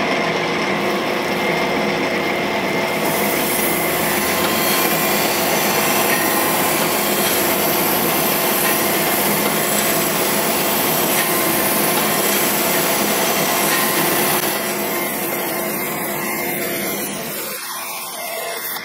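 Cam grinder's wheel grinding a lobe of a Ford FE solid-roller camshaft under flowing coolant, a steady grinding rush over the even hum of the machine. The grinding grows stronger a few seconds in and dies away over the last few seconds.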